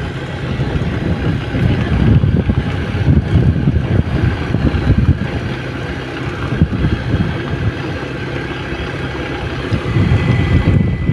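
Wind buffeting the microphone of a camera riding on a moving vehicle, with the vehicle's running engine and road noise beneath, steady throughout. A faint steady high tone comes in near the end.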